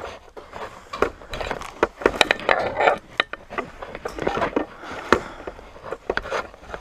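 Footsteps on wooden stairs and a debris-strewn floor in an abandoned house: a rapid, irregular run of knocks and scuffs.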